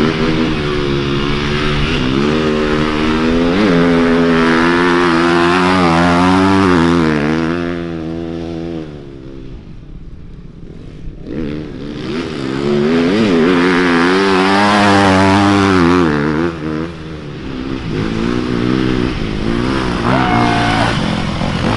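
Dirt bike engines revving hard as riders pass close by, the pitch rising and falling with the throttle. Two loud passes, the first fading about eight seconds in and the second from about twelve to sixteen seconds.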